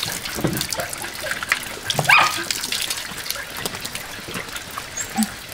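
Water running from a garden hose and splashing onto a wet concrete floor as puppies are bathed. One short rising puppy whine comes about two seconds in.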